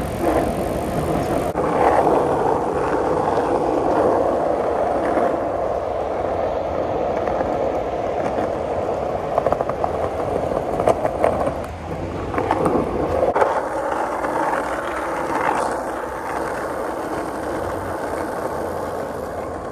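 Bicycles rolling over asphalt: steady tyre noise with wind rumbling on the microphone, and a few rattles and clicks between about ten and thirteen seconds in.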